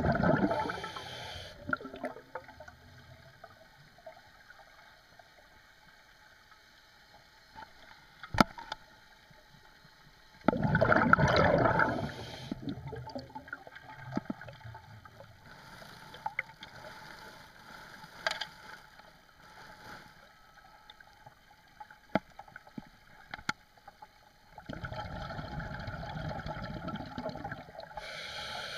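Recorded underwater: a scuba diver's exhaled bubbles rushing from the regulator in three bursts roughly ten to fourteen seconds apart, each lasting one to four seconds, with a few sharp single clicks in the quiet between.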